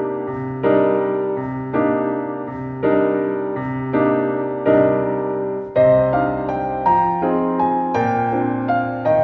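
Background keyboard music: soft piano chords struck about once a second, each ringing and fading before the next, with a higher melody line coming in about six seconds in.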